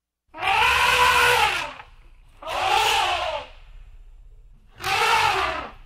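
African elephant calling three times, each call lasting about a second, harsh and noisy, rising then falling in pitch. A low hum runs underneath.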